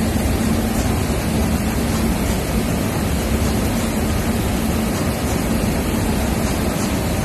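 Seed-sieving and cleaning machine running steadily: an even, dense mechanical noise with a steady low hum, as small seed streams out of its outlet chute.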